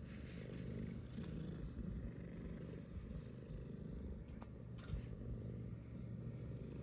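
A domestic cat purring, a low rumble that swells and eases about once a second with its breathing.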